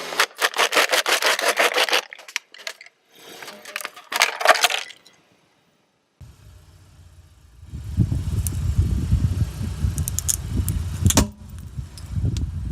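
Rapid crackling and crunching of objects being crushed under a car's tyre. After a sudden cut, a car's engine and tyres rumble low with a few sharp snaps as it rolls over them.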